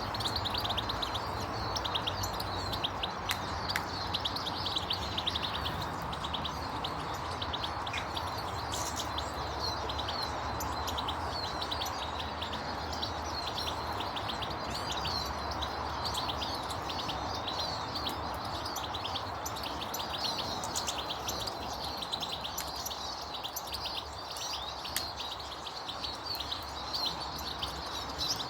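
Many small birds chirping in a continuous, overlapping chatter of rapid high chirps, over a steady background hiss.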